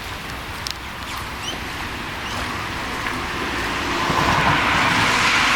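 Rain falling steadily after a hailstorm, a continuous hiss that swells to a louder rush over the last two seconds.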